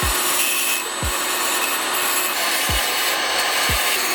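Rotary tool with a small bit grinding through a thin metal I/O shield in a steady, continuous hiss.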